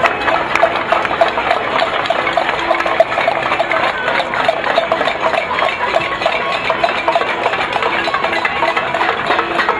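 Protesters banging pots and pans in a cacerolazo: a dense, rapid, unbroken metallic clatter. Car horns sound in short repeated honks through it.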